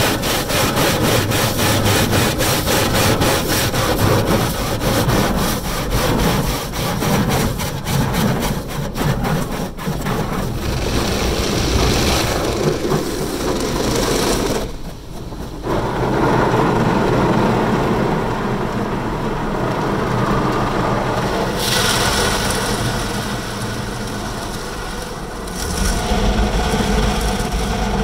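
Automatic car wash's rotating cloth brushes slapping and scrubbing across a car's windshield, with water spraying, heard from inside the car. Rapid repeated slaps fill the first ten seconds or so, then give way to a steadier scrubbing and spray, with a short lull about halfway.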